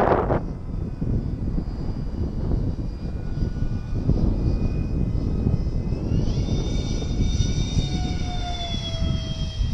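Twin electric ducted fans of a Freewing A-10 radio-controlled model jet whining in flight. About six seconds in the whine rises sharply as the model passes close, then slowly falls away. Wind buffets the microphone throughout.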